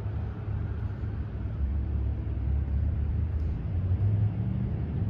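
Steady low rumble of an engine running nearby, with a hum that steps a little higher about four seconds in.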